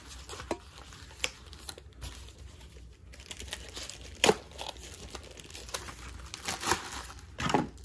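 Packaging being handled: a plastic bag crinkling and a small cardboard box rustling as a battery is unpacked, with scattered light clicks and knocks, the sharpest about four seconds in.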